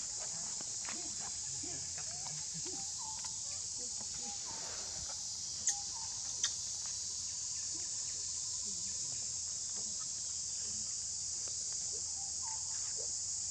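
Steady, high-pitched shrilling of an insect chorus, with faint short chirping calls scattered through it. Two sharp clicks about a second apart a little under halfway through.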